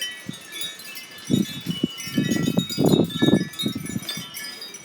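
Wind chimes ringing and jangling in strong, gusty storm wind, many overlapping pitches. Gusts buffet the microphone in rumbling bursts, loudest from about a second in to near the end.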